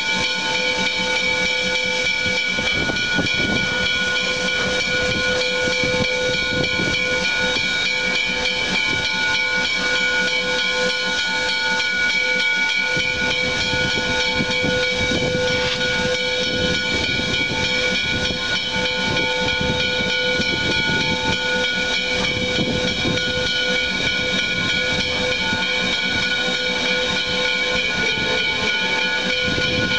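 Canadian National 3254, a 2-8-2 steam locomotive, venting steam as it moves slowly: a steady hiss carrying several held whistle-like tones, over a low, uneven rumble.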